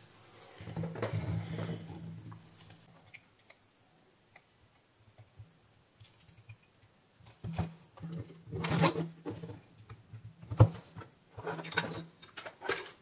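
Handling noise from a switching power-supply circuit board being lifted and turned over on a workbench: rustling and scraping, with several sharp knocks and clicks in the second half.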